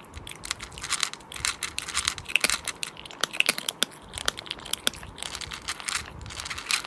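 Close-miked eating of a cooked sheep's head: wet chewing, smacking and tearing of the meat, heard as a dense run of quick crackling clicks.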